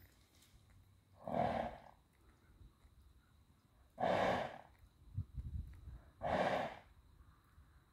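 A horse blowing three loud snorts through its nostrils, each under a second long and about two and a half seconds apart: the alarmed, excited snorting of a horse on alert, likened to a whistling kettle.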